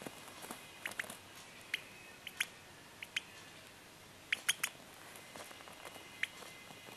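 Two-week-old lovebird chick giving short, high squeaky peeps, about a dozen scattered through, including a quick run of three about four and a half seconds in.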